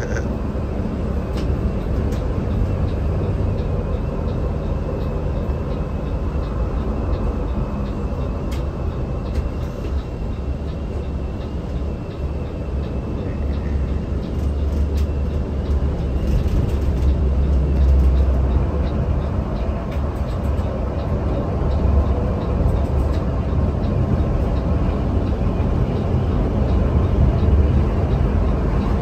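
Steady low rumble of a Mercedes-Benz OH 1626 coach's engine and tyres at cruising speed, heard from inside the cabin, swelling a little now and then with faint rattles.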